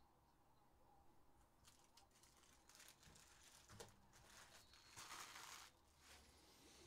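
Faint rustling and light clicks of trading cards and their packaging being handled, with a brief louder crinkle about five seconds in.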